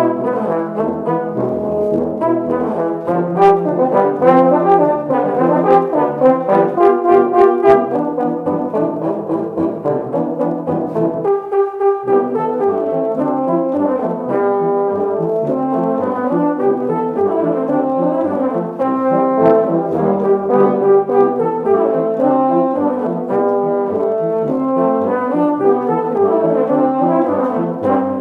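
A tuba quartet playing in ensemble, a moving low bass line under quicker notes above. About twelve seconds in, the bass drops out briefly while a single held note carries on, then the full group comes back in.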